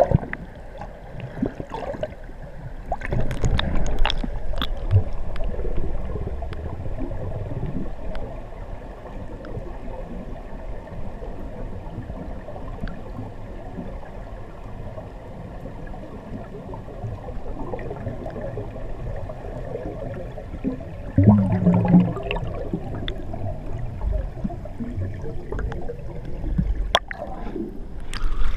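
Underwater water noise heard through a camera housing: rising scuba exhaust bubbles gurgling, with louder rushing surges about three seconds in and again about twenty-one seconds in.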